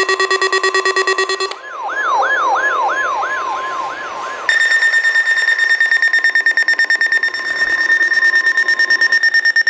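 Electronic alarm tones in three parts. First a fast-pulsing buzzy tone, then about one and a half seconds in a warbling sweep repeating about three times a second over a steady tone. From about four and a half seconds a higher, fast-pulsing beep follows.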